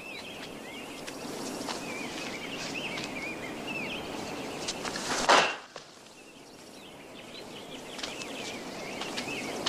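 Film soundtrack ambience of a steady hiss with small birds chirping. About five seconds in comes a single short, loud shout as the student throws his kick.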